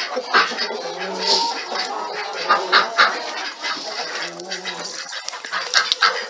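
A flock of chickens, hens and roosters, clucking, with many short, sharp calls throughout and a couple of longer, lower calls.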